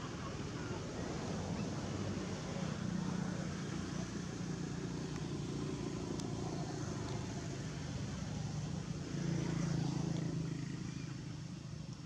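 Low, steady engine hum that swells louder about three seconds in and again near ten seconds in, like a motor vehicle passing.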